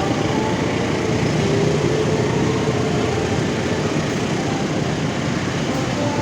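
Engine running steadily: a continuous, even rumble with a broad hiss over it and no horn.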